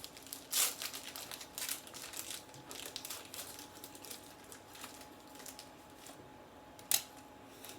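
Foil booster-pack wrapper crinkling as it is handled and torn open, busiest in the first two and a half seconds, then quieter rustling. A single sharp click about seven seconds in.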